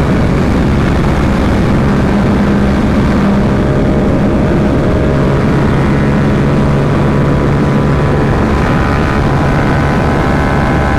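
Yamaha R7 motorcycle's parallel-twin engine running at a steady cruising speed, under a heavy rush of wind on the helmet microphone.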